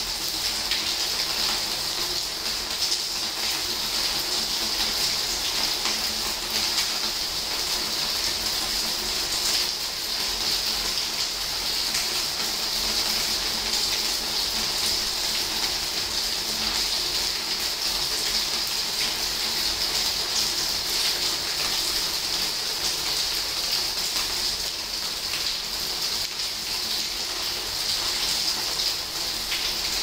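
Steady rain falling: an even hiss dotted with many small drop ticks.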